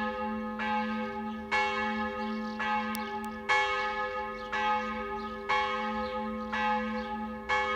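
Church bells ringing, with strokes about once a second that overlap one another. The bells' low hum rings on steadily between the strokes.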